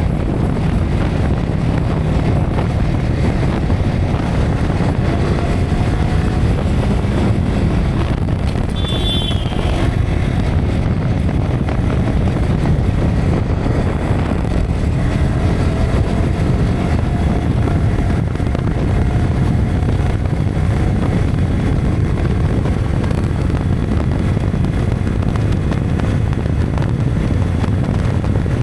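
Wind buffeting the action camera's built-in microphone during a ride on a Yamaha R15 V3 motorcycle, with its single-cylinder engine faintly underneath, rising in pitch a few times as it revs. A brief high falling tone sounds about nine seconds in.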